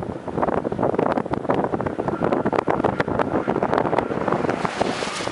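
Strong wind buffeting the camera microphone: a loud, rushing noise full of rapid crackles.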